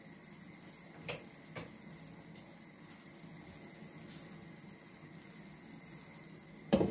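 Pork and tomato stew sizzling faintly and steadily in an uncovered frying pan as it simmers, with two small clicks about a second in. A sudden louder knock comes at the very end.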